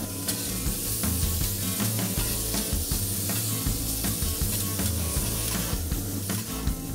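Venison and sautéed vegetables sizzling on a steel flat-top griddle, with a metal spatula scraping and clicking against the griddle as it scoops them up.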